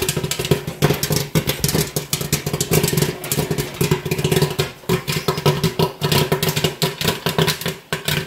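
Great Northern GNP-800 popcorn machine's kettle in full popping: a dense, rapid crackle of kernels bursting and popcorn spilling out, over a steady hum from the machine.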